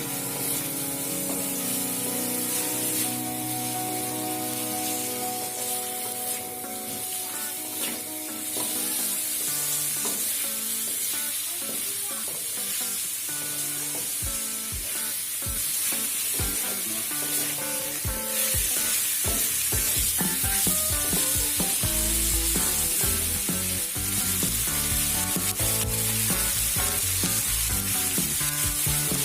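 Food frying in a pan with a steady sizzle, over background music whose beat comes in about halfway through.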